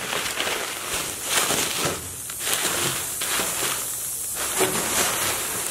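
Bubble wrap crinkling and rustling as hands handle it: a continuous crackling with irregular louder crackles.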